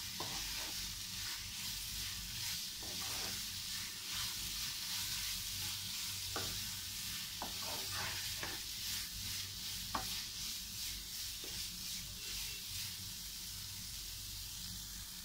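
Grated carrot and milk powder sizzling steadily in a nonstick frying pan while a wooden spatula stirs it, scraping and knocking against the pan now and then. The carrot halwa mixture is cooking down toward dryness near the end of cooking.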